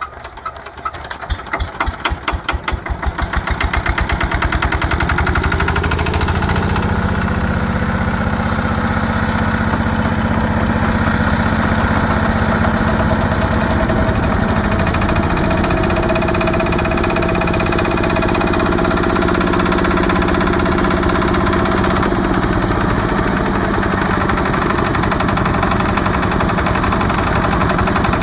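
The single-cylinder diesel engine of a power tiller being hand-crank started. Slow separate firing knocks speed up over the first few seconds into a steady chugging run, and the engine then idles steadily, rising a little in pitch about six seconds in.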